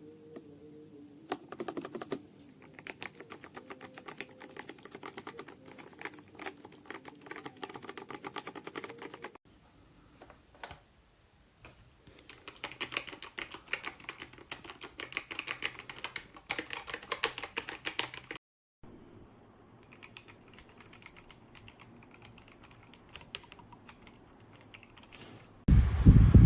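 Typing on an AIGO darkFlash GD100 mechanical keyboard with yellow switches: rapid runs of key clicks in three stretches, the middle one the loudest. Near the end a loud rushing noise cuts in.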